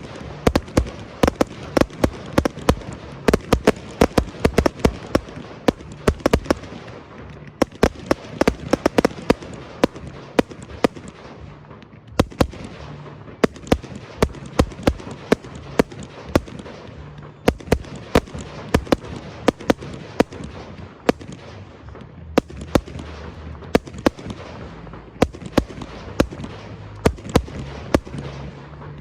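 Fireworks display: shells bursting in rapid succession, many bangs a second with echoing tails, continuing throughout without a pause.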